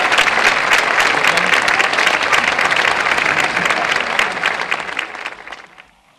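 Audience applauding, dense clapping that dies away quickly about five to six seconds in.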